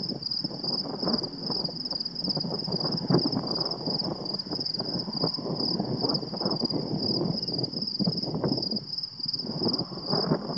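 Prairie wind gusting through tall grass and buffeting the microphone: a rough, uneven rush that rises and falls and lulls briefly near the end. A steady, high, rapidly pulsing tone runs over it throughout.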